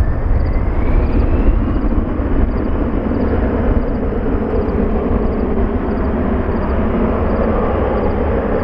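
Boeing 777's twin jet engines at low power as it taxis: a steady rumble and hiss, with a faint whine rising in pitch near the start.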